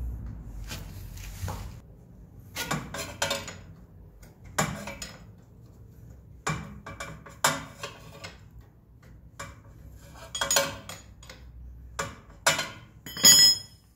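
Metal tools and parts clinking and clattering on a hard surface: about a dozen sharp, irregular clinks, the last one near the end ringing. A low hum fades out about two seconds in.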